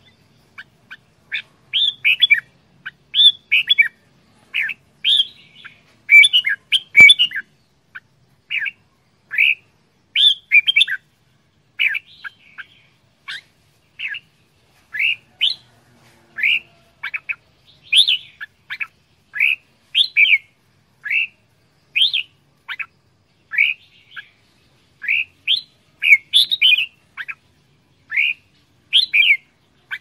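Red-whiskered bulbul calling: a steady run of short, loud chirping notes, about one a second, each sliding down in pitch, sometimes in quick pairs or clusters.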